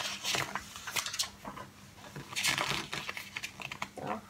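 Pages of a glossy paper booklet being flipped and handled, a few short papery rustles in a row.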